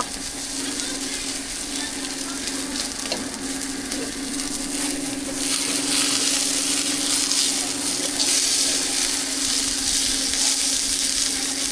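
Food sizzling and frying on a hot griddle, the sizzle growing louder about five seconds in, over a steady low hum.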